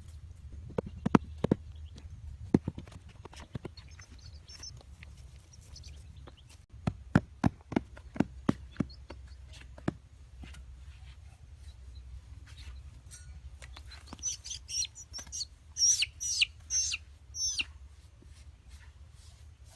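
Sharp knocks and taps in two clusters, then a bird chirping: about eight high calls in quick succession in the last few seconds.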